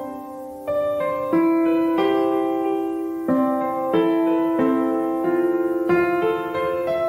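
Background piano music: gentle sustained chords, a new one struck about every two-thirds of a second.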